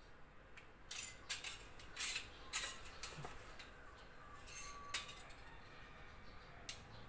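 Metal snake tongs clicking and scraping on a tiled floor as they grab at a snake, with a run of sharp clinks and short scrapes between about one and five seconds in.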